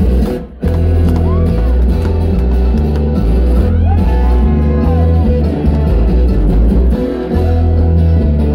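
Live bluegrass band playing loud, with upright bass, acoustic guitar and banjo. The whole band cuts out for a moment about half a second in, then comes straight back in.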